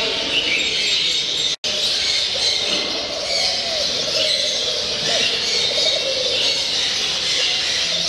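A dense, steady chorus of many caged show birds calling at once, with overlapping chirps and calls. The sound drops out for a split second about one and a half seconds in.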